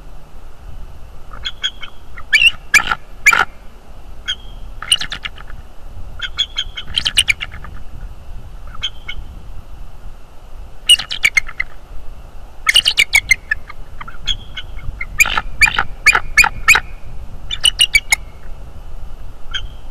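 A bird calling in repeated bursts of quick staccato notes, shrill and harsh, coming again every second or two, with the loudest bursts a few seconds in, about halfway, and in the last third.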